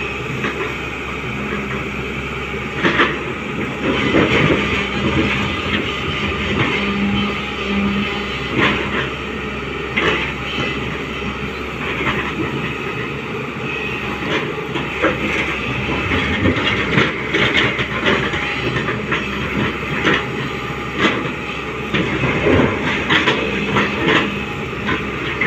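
Hyundai 245LR long-reach crawler excavator working: its diesel engine running steadily under load with the hydraulics driving the boom, and scattered knocks and clatter as the bucket digs into the wet pit.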